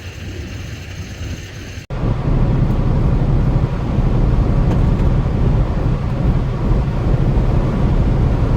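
Steady low engine and road noise inside the cab of a moving semi-truck. It begins abruptly about two seconds in, after a quieter stretch of background sound.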